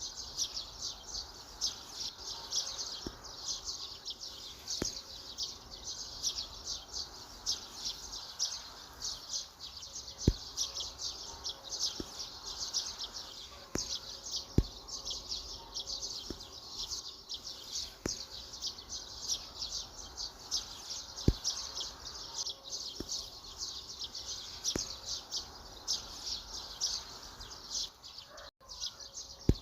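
Many small forest birds chirping and singing continuously in quick, high-pitched notes, with a few sharp clicks standing out above them.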